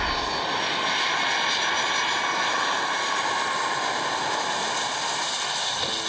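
Boeing 757-200 jet engines on a landing approach: a steady rushing roar with a high whine of several steady tones over it.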